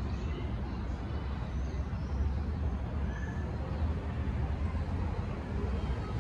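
Steady low outdoor background rumble, with a few faint, short high chirps scattered through it.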